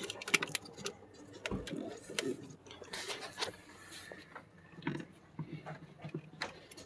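Irregular light clicks, taps and rattles of hands handling a plastic air-intake box and its clips and fasteners in an engine bay, with the engine off.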